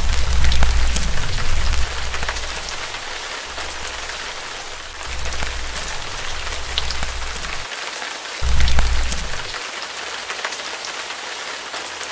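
Fire sound effect: a steady crackling hiss dotted with small pops, under low rumbling swells of flame that are loudest at the start and again briefly about nine seconds in.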